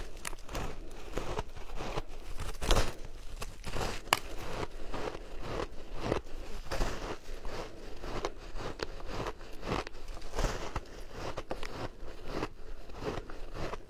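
Frozen shaved ice being bitten and chewed: a continuous run of crisp, irregular crunches, with the sharpest cracks about three and four seconds in.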